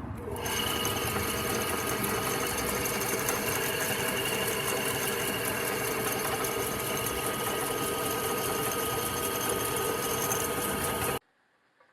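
Shinko Seisakusho SD-13 benchtop drill press running steadily on freshly replaced spindle bearings, its motor and spindle giving an even hum with a high whine; it cuts off sharply near the end.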